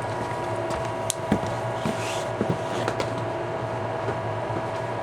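Pressure washer's electric motor running steadily with a hum and a steady whine, with a few faint clicks about a second in. The motor has badly worn bearings and is running hot with its cooling fins removed.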